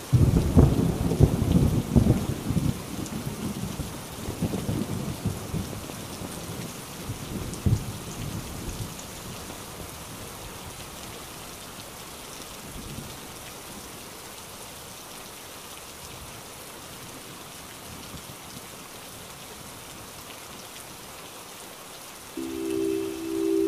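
Heavy rain falling steadily, with a loud roll of thunder that breaks right at the start and rumbles away over about nine seconds. Near the end a few sustained music notes come in over the rain.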